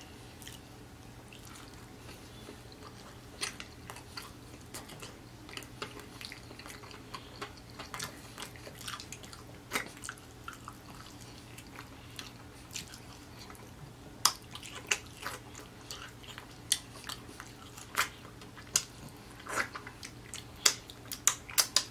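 Close-miked chewing and wet mouth clicks as a man eats fried chicken off the bone, the clicks scattered at first and coming more often in the second half.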